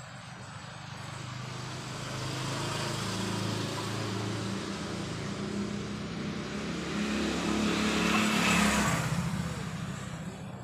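A motor vehicle passing by: engine hum and road noise growing louder to a peak about eight seconds in, then fading.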